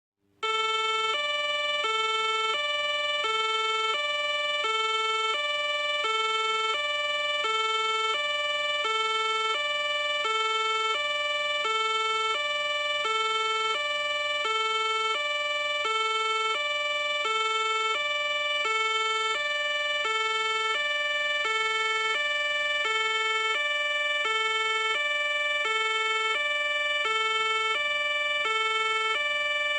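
Fire engine's two-tone siren, switching steadily between a high and a low note about once a second.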